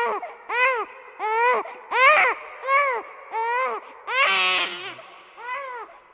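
Baby crying in a steady run of short, high wails, each rising and falling in pitch, about one every three-quarters of a second. A louder, harsher cry comes about four seconds in.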